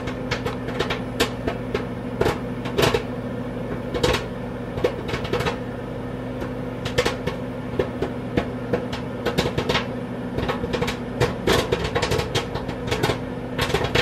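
Microwave oven running with a steady hum while popcorn-on-the-cob kernels pop inside a paper microwave bag, sharp pops at irregular intervals, a few a second at times.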